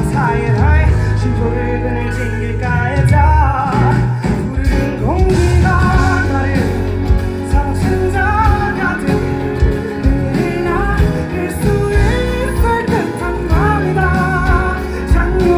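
Live band music with a guitar and a wavering sung melody, played loud through a concert sound system.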